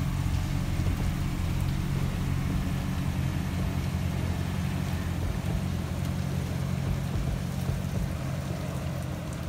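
6.2-litre V8 of a 2008 GMC Denali pickup idling steadily.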